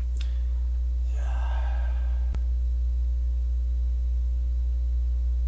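Steady low electrical mains hum, with a short breathy sigh about a second in and a single faint click a little after two seconds.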